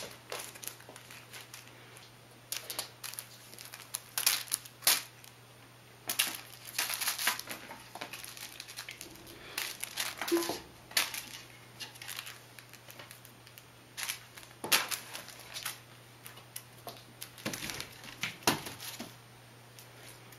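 Irregular rustling, crinkling and scuffling bursts of a kitten pouncing on and wrestling with a plush mouse toy, paws scrabbling on fabric, floor and cardboard.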